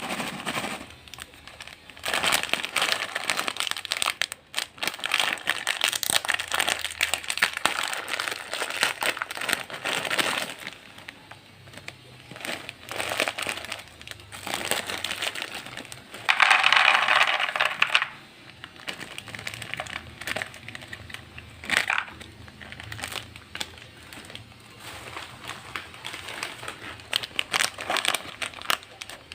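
Crinkling and crushing of a plastic snack packet, coming in noisy stretches of a few seconds with short pauses, loudest about seventeen seconds in.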